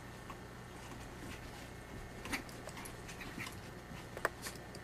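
A Cairn terrier puppy and a Maltese play-wrestling: faint scuffling with scattered short clicks and scratches, the sharpest just after four seconds in.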